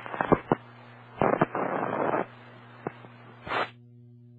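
Aviation radio carrying a Cessna 152's transmission with its microphone stuck keyed. Steady hiss is broken by clicks and crackles and a loud rush of noise lasting about a second. The transmission cuts off near the end, leaving a faint hum.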